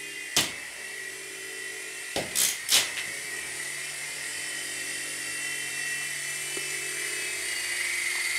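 Mini RC helicopter's small electric motors and rotor blades whining steadily in flight, a thin high drill-like tone. A few sharp knocks come about half a second in and again between two and three seconds in.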